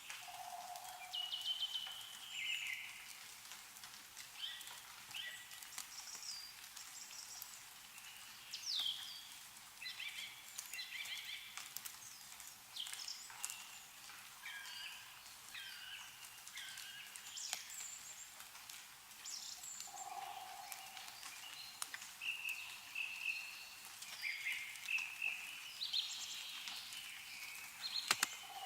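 Several small birds chirping and twittering in quick overlapping calls, with frequent light clicks of water dripping from melting snow. A lower call sounds three times: near the start, about two-thirds of the way in, and at the very end.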